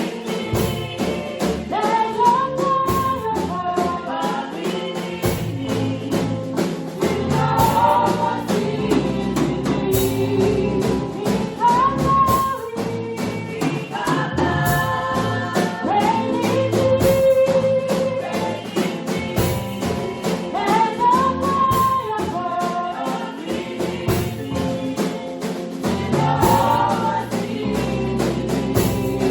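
Church choir singing a gospel song with instrumental accompaniment and a steady percussion beat.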